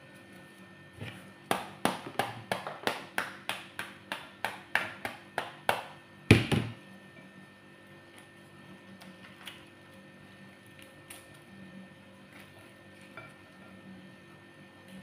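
A quick run of taps on the back of a cut pomegranate half, about four a second for some four seconds, knocking the seeds loose, then one louder thump about six seconds in. A few faint knocks follow as the seeds are worked free by hand.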